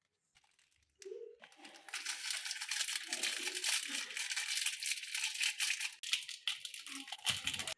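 Packaging being crumpled and torn, a dense crinkling crackle that starts about a second in.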